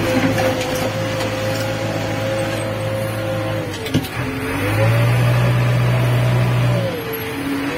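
JCB 3DX backhoe loader's diesel engine running, heard from inside the cab while driving. Its note drops about four seconds in, with a single sharp knock, then picks up louder and drops again near the end as the revs change.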